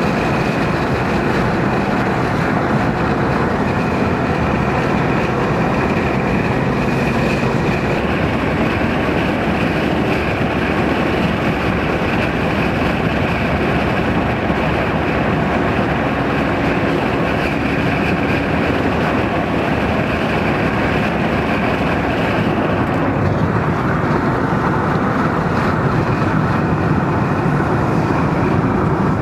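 Steady driving noise from a car moving at road speed: engine, tyre roar and wind, heard from inside the cabin.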